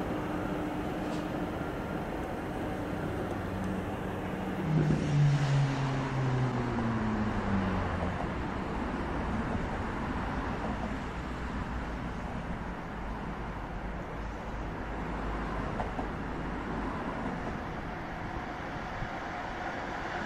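Road and rail traffic noise. Steady hum at first, then a vehicle passes loudly about five seconds in, its tone falling in pitch. Afterwards a steady low rumble.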